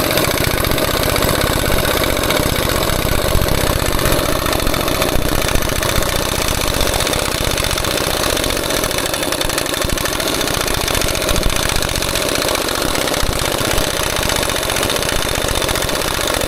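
Impact wrench hammering steadily and rapidly without a break, turning the bolt of a puller that is drawing a planet gear pin out of a dozer final drive.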